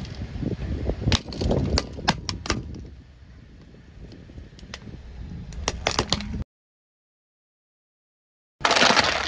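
Hollow plastic toy ball cracking and snapping as a car tyre rolls onto it and crushes it: a run of sharp cracks over a low rumble, a quieter spell, then a few more snaps. About six and a half seconds in the sound cuts out for roughly two seconds, then a loud burst of noise starts near the end.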